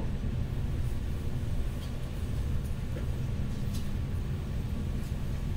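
Cabin noise of a Stadler FLIRT electric multiple unit running at speed: a steady low rumble of wheels rolling on the rails, with a few faint ticks.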